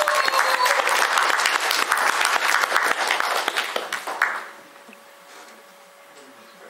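Audience applauding, a dense patter of clapping that stops about four seconds in, leaving quiet room tone with a faint steady hum.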